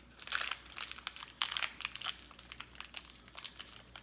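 Plastic snack wrapper crinkling as it is handled, in crackly bursts about half a second in and again from about a second and a half in.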